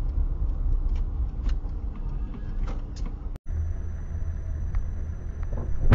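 Steady low road and engine rumble inside a moving car, picked up by a dashcam, with scattered faint ticks. About three and a half seconds in it cuts off briefly and a second car's rumble follows, with a thin, faint high steady tone over it.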